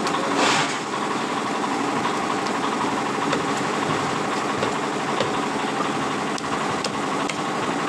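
A large knife scraping and chopping a big rohu on a wooden chopping block: a harsh scrape about half a second in, then scattered sharp knocks. Under it a steady engine-like drone.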